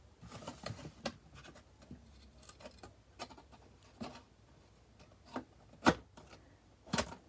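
Thin cardboard box being handled and closed by hand: scattered light rubs, scrapes and taps of cardboard, with a couple of sharper knocks near the end.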